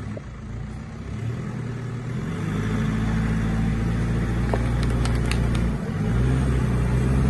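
Nissan Patrol Y61 engine running and revving up under load, easing off briefly about six seconds in, then pulling again, as the heavy SUV tries to get free on a slope of slick clay mud with almost no traction.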